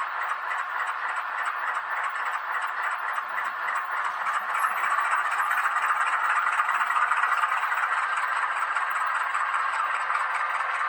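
H0-scale model of a Renfe Alco 313 diesel locomotive running along the layout track, a steady rattling run of its motor, gears and wheels that gets louder about halfway through.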